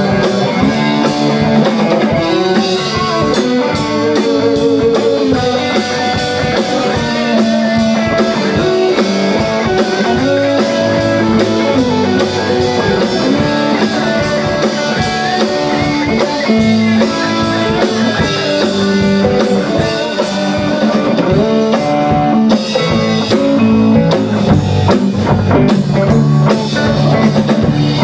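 Live rock band playing: electric guitars and electric bass over a drum kit, with melodic guitar lines running through.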